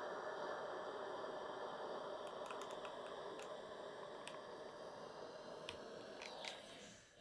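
Steam iron and fabric being handled while a neckline facing is pressed on a pressing ham: a faint steady hiss with a few soft clicks and taps scattered through the second half, the hiss slowly fading toward the end.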